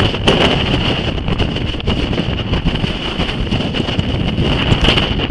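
Strong wind buffeting the microphone: a loud, fluctuating rumble with a steady high-pitched whine running through it.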